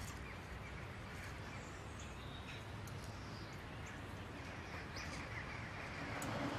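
Outdoor ambience: birds chirping here and there over a steady background hiss.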